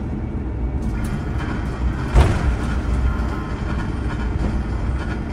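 Airbus A350-1000 cabin noise as the airliner rolls out on a wet runway after landing: a steady low rumble of the wheels and idling engines, with a single thump about two seconds in.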